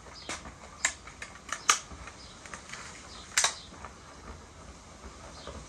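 Sharp clicks and clacks from handling an old break-barrel pellet gun with its barrel broken open: a handful of separate clicks, the loudest about one and a half and three and a half seconds in.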